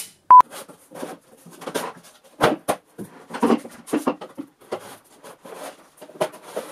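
A thin board and a wooden dust-collector transition box being handled: irregular light knocks, taps and scrapes as the thin panel is pressed and bent against the curved frame. A short, loud high beep sounds about a third of a second in.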